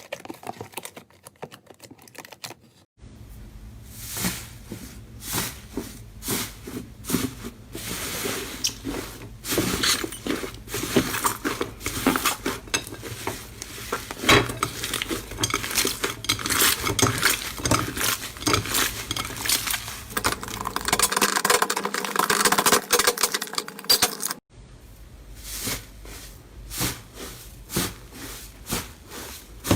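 Slime being pressed and worked, giving a dense run of sticky clicks, pops and crackles. The sound changes abruptly about three seconds in and again near the end, as one slime clip gives way to another.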